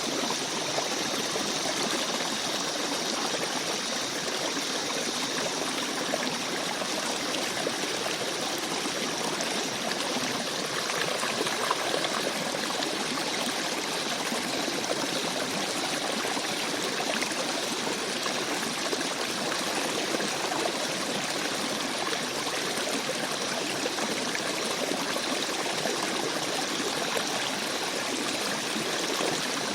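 Small forest stream babbling and trickling over rocks, a steady rush of flowing water with light splashes and gurgles.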